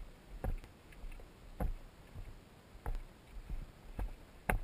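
Footsteps of a hiker walking on a dry, gravelly dirt trail: a steady walking rhythm of short crunching knocks, roughly one every half second to a second.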